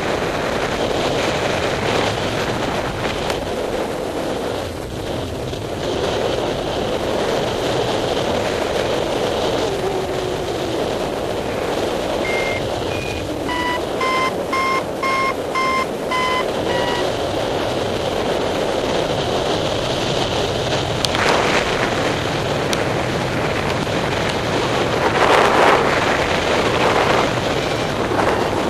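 Steady rush of airflow and wind on the microphone of a paraglider in flight. Midway, a paragliding variometer gives a run of short beeps, about two a second, stepping slightly up in pitch, and starts beeping again near the end: the sign that the glider is climbing in lift.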